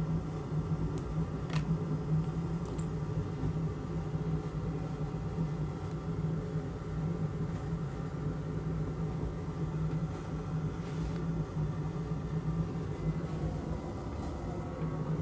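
Small fan motor humming steadily, with a faint click about one and a half seconds in.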